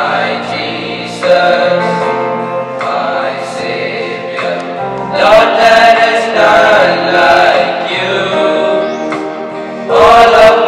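A group of boys singing a prayer song together in phrases, with held instrumental chords underneath.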